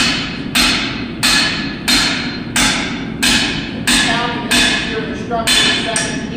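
Blacksmith's hand hammer striking hot steel pipe in a steady run of hard blows, about three every two seconds. Each blow is followed by a short metallic ring.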